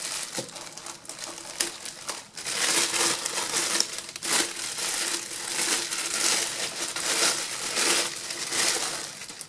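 Packing material crinkling and rustling continuously with irregular crackles as the airbrush compressor is unwrapped and handled.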